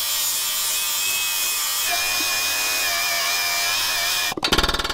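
Small cordless angle grinder with a grinding disc biting into rusty steel frame rivets, a steady grinding noise with a high whine that sags slightly under load partway through. Near the end it cuts off and a pneumatic air hammer starts rattling rapidly against the frame.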